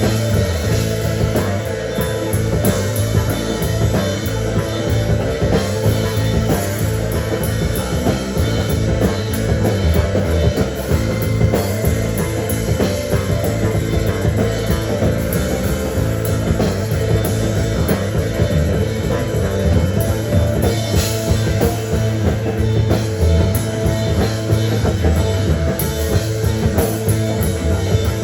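Rock band playing live: drum kit and guitar in a loud, steady full-band mix.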